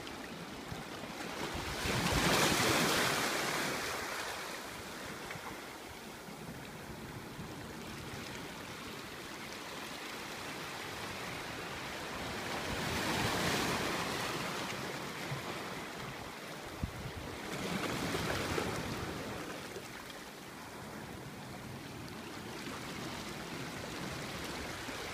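Small waves washing in over sand and rocks at the shoreline, with a steady hiss of surf between them; the wash swells up about two seconds in, again around thirteen seconds and around eighteen seconds.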